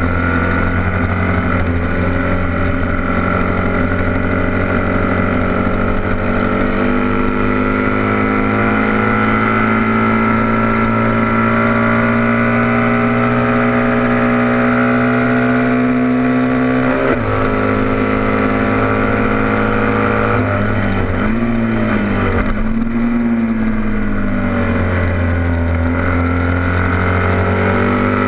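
A vintage heavyweight road-racing motorcycle's engine, heard from on board the bike, running at high revs. Its pitch climbs slowly as it pulls down a straight, drops sharply about 17 seconds in as the throttle closes, swings up and down a few times as it shifts down for a corner, then climbs again as it accelerates out.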